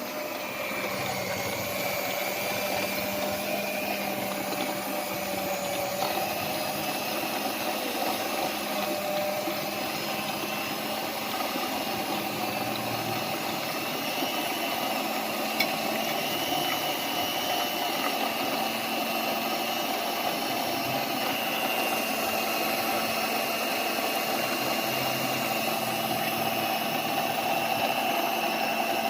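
Electric mixer motor running steadily at a constant pitch while beating eggs into choux pastry dough.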